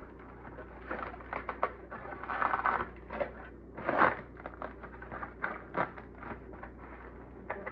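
Crumpled aluminium foil crinkling and crackling as hands pull a foil packet open, in irregular crackles with the loudest crumple about four seconds in.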